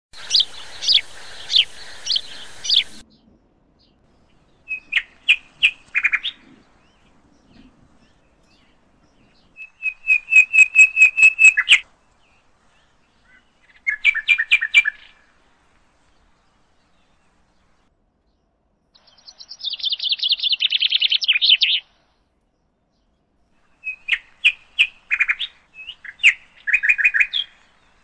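Northern cardinal song: five phrases of clear, repeated whistled notes, some slurring downward and one a fast run, with silences between them. The first three seconds hold a series of chirps over a steady hiss.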